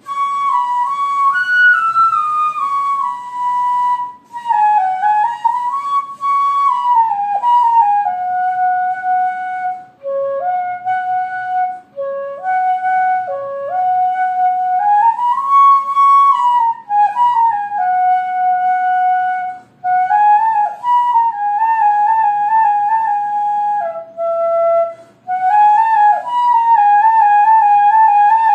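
Background music: a single melody line in a high register, moving in short stepped phrases with brief pauses between them.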